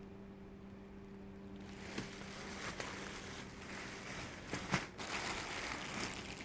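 Dresses and their wrappings being handled, rustling and crinkling with a few sharp clicks, starting about a second and a half in, over a steady low hum.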